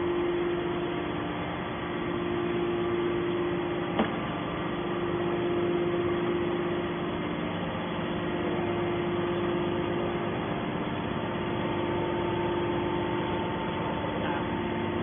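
Scrap-metal baling machinery running with a steady hum and a constant held tone, and one sharp knock about four seconds in.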